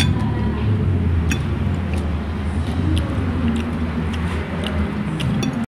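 Steady low rumble of a motor vehicle engine running, with scattered small clicks and smacks of a man eating rice and chicken with his fingers.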